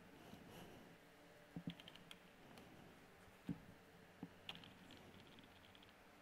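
Faint, scattered clicks and taps of computer keyboard keys, a few single presses with gaps between and a quick run of light ticks a little past halfway.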